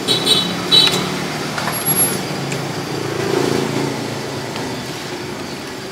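Street traffic noise: a motor vehicle's engine hum swells about three seconds in over a steady roadside background, with a few short high squeaks in the first second.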